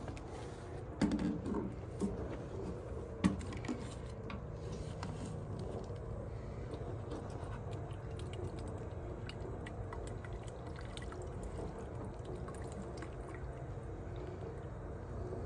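Water from a stainless-steel drinking fountain running in a steady stream into a clear plastic water bottle, filling it. A few knocks in the first few seconds as the bottle is handled at the fountain.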